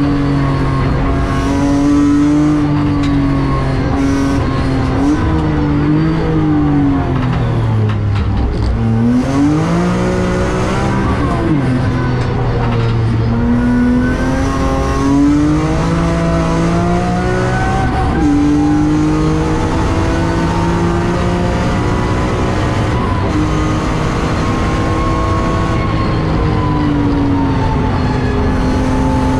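BMW E46 M3's S54 straight-six heard from inside the cabin under hard track driving, its note climbing and falling repeatedly through acceleration, gear changes and braking, dropping lowest about eight seconds in.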